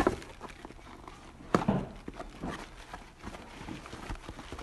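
Cardboard boxes and plastic wrap being handled: rustling and small taps, with a sharp knock at the start and another about a second and a half in.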